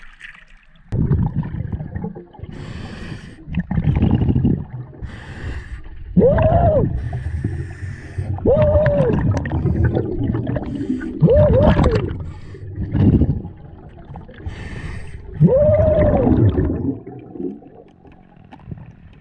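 Scuba diver breathing through a regulator underwater: hissing inhalations alternate with loud, bubbling exhalations every couple of seconds, several of the exhalations carrying a tone that rises and falls.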